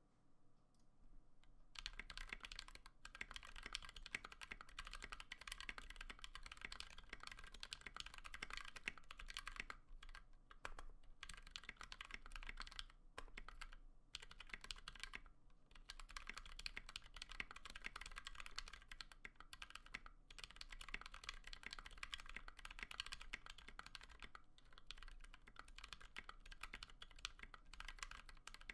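Typing on a Tofu mechanical keyboard with lubed Outemu Sky V2.2 switches on a polycarbonate plate: a dense, continuous patter of keystrokes that begins about two seconds in, with a few brief pauses.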